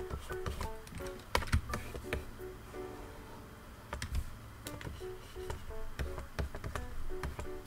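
Stylus nib tapping and stroking on a Gaomon PD1560 pen display: irregular sharp clicks, loudest a little over a second in and about four seconds in. Background music with a plucked melody plays under them.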